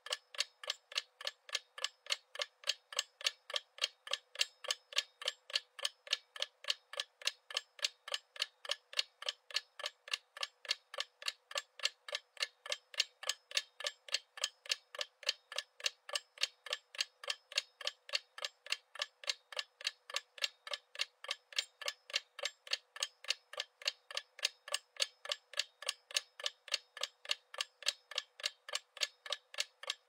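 Stopwatch-style clock ticking: a rapid, even train of sharp ticks that keeps a steady pace.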